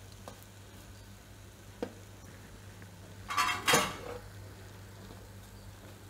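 Crisp fried shakkarpara pieces clattering onto a stainless steel plate: a light click, a knock, then a louder double clatter about three and a half seconds in.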